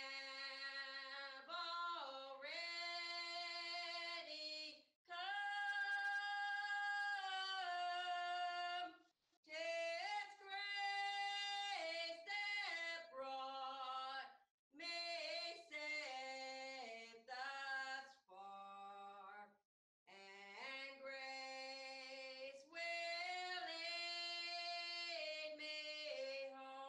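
A woman's voice singing a slow melody unaccompanied, in long held notes that glide from one to the next, phrase by phrase with short breaths between.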